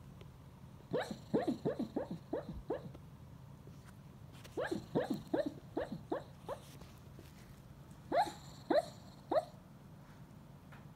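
A West Highland white terrier yipping in its sleep while dreaming. The short yips each drop in pitch and come in three bursts: about eight, then about seven, then three near the end.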